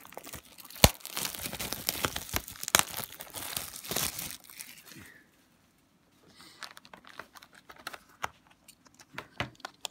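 Plastic shrink-wrap being torn and peeled off a sealed hockey card box, crinkling and crackling, with a sharp snap about a second in. The crinkling stops about five seconds in, and softer scattered clicks and rustles follow as the cardboard box is handled.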